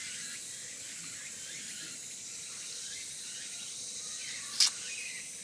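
Steady high hiss of summer forest insects. About four and a half seconds in comes one short, sharp, wet smack of a mouth biting into a boiled octopus tentacle.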